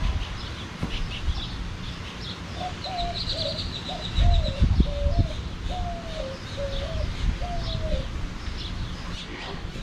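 A bird calling: a run of about eight short notes, each rising then dropping, with high chirping from other birds throughout. Low rumbling thumps, loudest about four seconds in.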